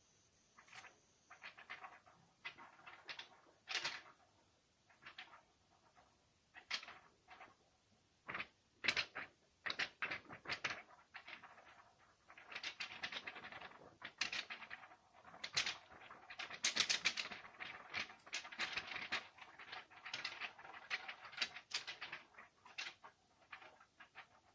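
A card scraped and scratched against a surface in short, irregular strokes, sparse at first and coming thick and fast in the middle and latter part.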